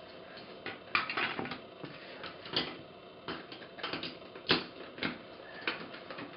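Plastic Hot Wheels Track Builder pieces being handled and snapped together: irregular small clicks and taps, a few of them sharper.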